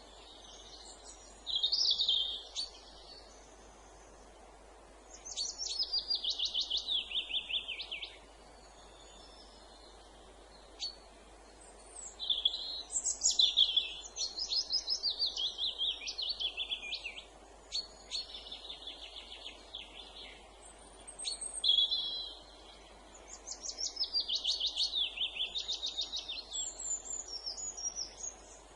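Songbirds singing in woodland: phrases a couple of seconds long made of quick repeated notes that fall in pitch, coming again and again with short pauses between, over a faint steady background hiss.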